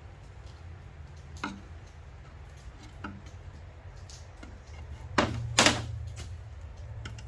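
A small press-fit brass keyhole escutcheon being pried out of a painted wooden drawer front. A couple of faint clicks come first, then two sharp snaps about half a second apart near the end.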